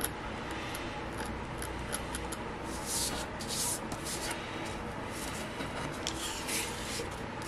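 Pen nib scratching across paper in short strokes, several of them in quick sequence, over a steady low room hum.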